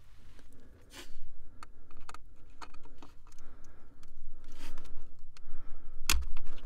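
Small clicks and scrapes of tweezers and fingertips prying the RTC coin-cell battery out of its plastic clip on a laptop mainboard, with a sharper knock about six seconds in.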